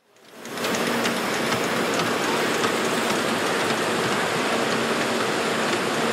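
A steady, dense hiss with faint low hums under it, fading in over the first half second.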